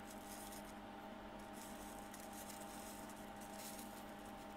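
Quiet room tone with a steady low hum, and faint light rustles and taps of a small plastic figurine being turned over on artificial grass.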